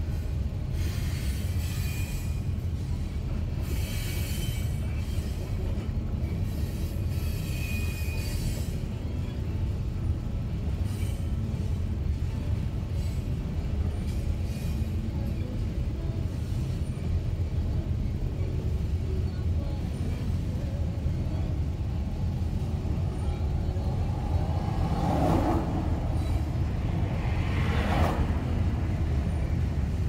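Freight train of covered grain hopper cars rolling past close by: a steady low rumble of steel wheels on rail. Two short higher-pitched sounds come near the end, typical of wheel squeal.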